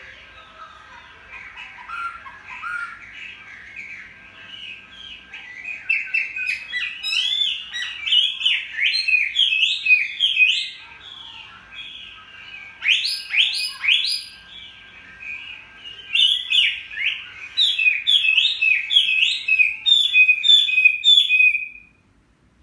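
Chinese hwamei singing: long, loud runs of rapid, varied whistled phrases that come in several bursts and break off abruptly near the end.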